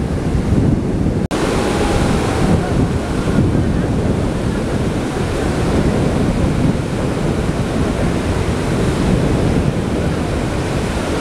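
Wind buffeting the microphone over the steady wash of sea surf, with a brief drop in sound about a second in.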